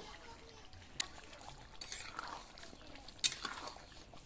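Metal spatula stirring a watery fish curry in a metal wok: liquid sloshing, with sharp clinks of the spatula against the pan about a second in and, loudest, a little after three seconds.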